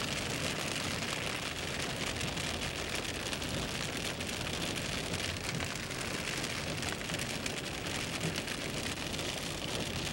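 Steady rain and road noise heard inside a moving car on a wet highway: tyres hissing on the wet pavement and rain striking the car.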